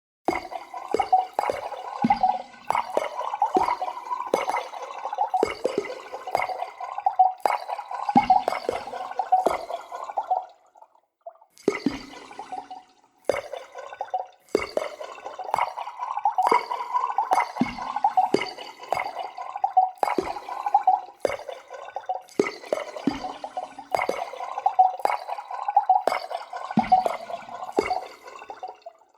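Liquid bubbling: a dense, fast run of bubble pops, with a break of about two seconds near the middle.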